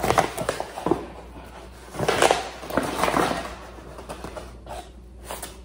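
Paper flour bag rustling and crinkling as it is gripped and lifted, loudest about two to three seconds in, with a couple of short knocks near the end.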